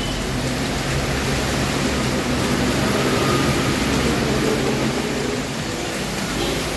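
Steady rain on a corrugated metal roof: an even, unbroken rushing hiss.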